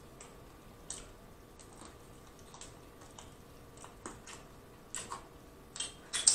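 Wet mouth clicks and smacks of sucking meat off a fried chicken wing bone and licking fingers: scattered irregular clicks that come faster and louder from about five seconds in.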